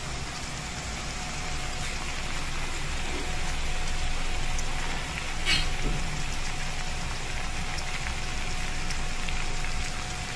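Crabs and corn in garlic butter sauce sizzling in a pan: a steady hiss with fine crackles, and one sharper crackle a little past halfway.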